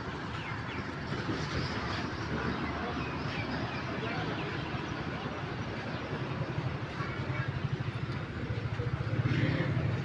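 Bomag BF 600 C asphalt paver's diesel engine running steadily with a low, fast pulsing, growing louder in the last few seconds.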